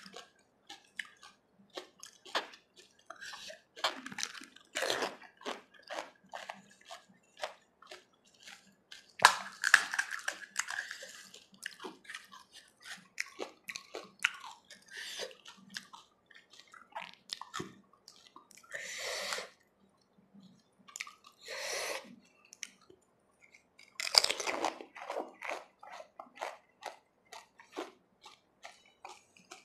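Close-miked eating of pani puri: crisp fried puri shells crunching as they are bitten, and wet chewing of the filled, water-soaked shells. Many quick irregular crackles, with a few longer, louder bursts of crunching scattered through.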